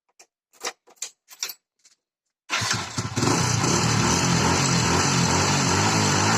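A few short clicks, then a Hero Passion Pro BS6's single-cylinder four-stroke engine starts about two and a half seconds in and settles into a steady idle, in its stock, unmodified form.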